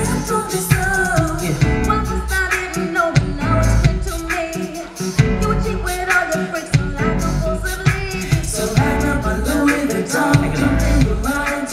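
Live pop and R&B song: a woman's lead vocal over band backing with a steady drum beat and bass.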